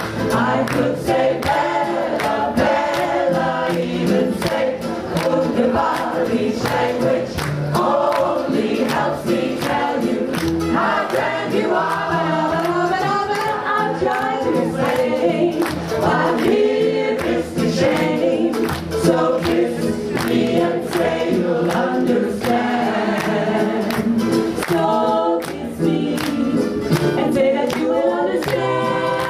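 Mixed community choir singing a song in close harmony, women's voices at the microphones on top of men's voices, with sharp regular clicks keeping the beat.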